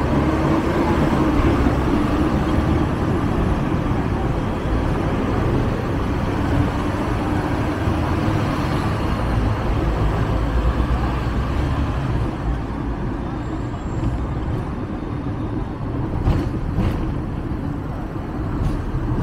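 Hong Kong double-decker electric tram running along its rails: a steady rumble of wheels and motor with street traffic around it. The rumble eases off about two-thirds of the way through, and two short clicks come near the end.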